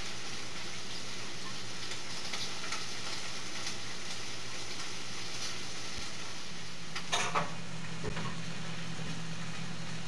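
Chicken frying in a skillet, a steady sizzling hiss, with a short clatter of a spoon against a metal saucepan about seven seconds in.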